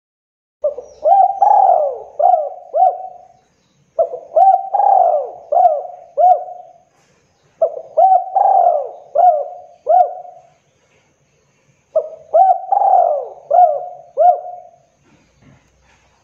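Spotted dove cooing: four song phrases, each a run of about five quick coos that rise and fall in pitch, with a short pause between phrases.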